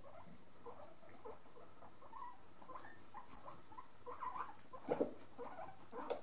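Guinea pigs chewing lettuce and moving about, a faint patter of small crunches and shuffles. A few sharper knocks come near the end.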